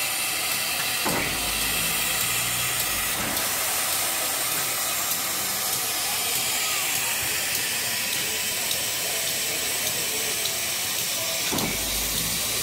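Steady steam hiss from Dollywood's standing steam locomotive No. 192, a 1943 Baldwin 2-8-2, with a brief low rumble about a second in and again near the end.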